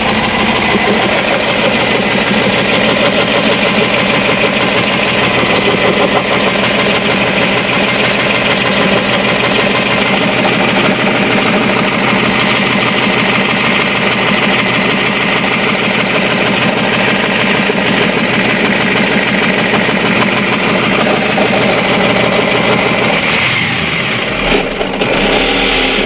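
Caterpillar 3208 V8 diesel engine running steadily and loudly. It now runs after being a no-start, its rusted, stuck injection-pump plungers and barrels replaced.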